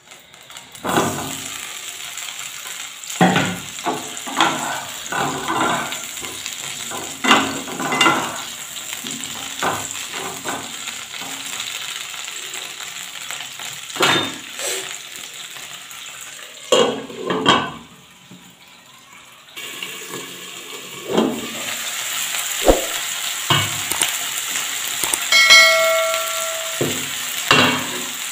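Cauliflower florets being lightly fried in hot vegetable oil in a nonstick frying pan: steady sizzling, with knocks and clatter as the florets are dropped in and pushed about. A short ding sounds near the end.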